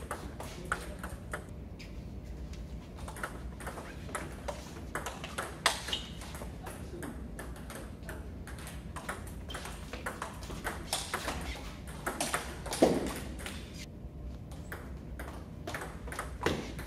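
Table tennis rally: the ball clicking off paddles and the table in a quick, irregular back-and-forth. A short, louder sound falling in pitch comes about thirteen seconds in.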